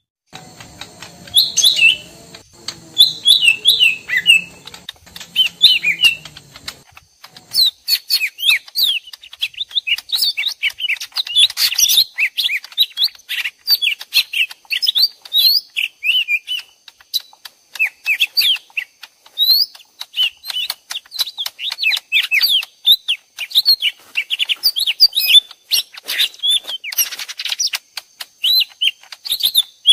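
Two leafbirds (cucak ijo mini) calling back and forth in rapid, sweeping chirps, as if fighting: a mixed lure recording for trapping this bird. A faint low hum lies under the first seven seconds, and the chirping grows denser after a short break at about seven seconds.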